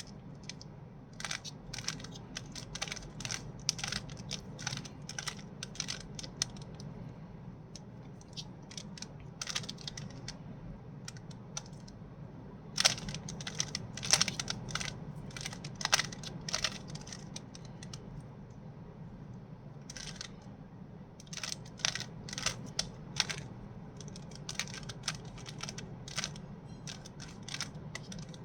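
Plastic Rubik's cube being turned by hand: quick irregular clicks and clatters of the layers rotating, in bursts with short pauses, as the second layer is solved.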